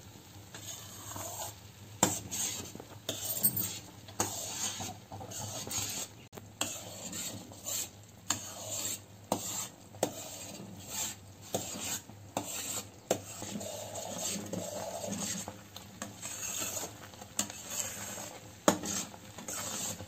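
A metal spoon stirring and scraping through thick cream in a stainless steel pan, with irregular clinks against the pan's sides and bottom. The buffalo-milk cream has melted and is starting to separate and thicken toward a paste as it is cooked down into ghee.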